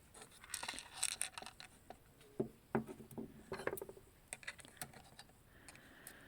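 Light, irregular clicks and clinks of small metal parts being handled: the check valve and pieces of a timing chain tensioner taken apart by hand.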